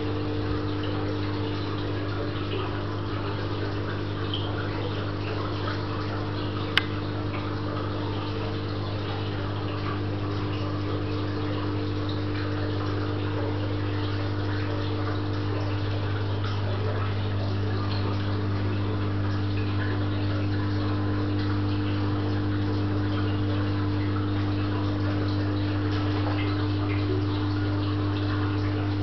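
Aquarium filter pumps running with a steady hum over a constant rush and trickle of water, with one sharp click about seven seconds in.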